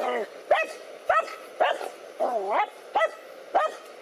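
Dogs barking repeatedly at a snake they are confronting, about two sharp barks a second. About halfway through comes one longer, wavering bark that dips low in pitch.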